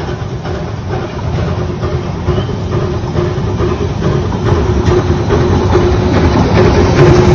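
Narrow-gauge steam locomotive and its passenger cars running toward the listener, growing steadily louder, with wheels clacking over the rail joints and a steady ringing tone over the rumble.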